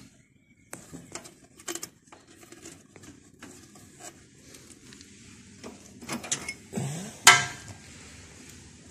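Scattered light clicks and knocks of metal being handled in and around a tractor's opened gearbox housing, with one sharp click about seven seconds in as the loudest.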